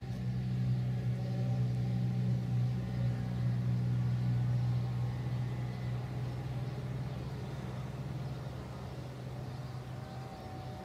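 A steady low hum that eases off gradually after about five seconds.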